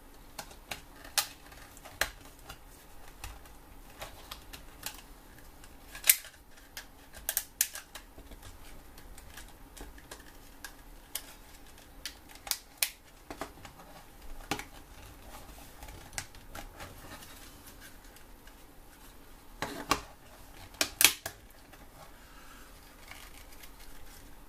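Irregular clicks and taps of small plastic parts being handled and pressed together while a battery adapter is fitted into a Dyson battery case, with the loudest knocks about six seconds in and again near twenty seconds, the last a close pair.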